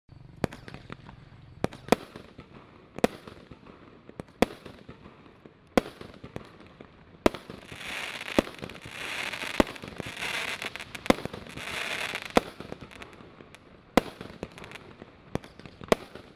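Neptun 32-shot consumer fireworks battery (cake) firing: about a dozen sharp bangs, roughly one every second and a half. Between about 7 and 12 seconds in, a dense crackling from crackling stars fills the gaps between the bangs.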